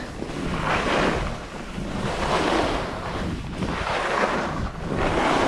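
Rushing wind noise on the microphone, swelling and fading every second or two.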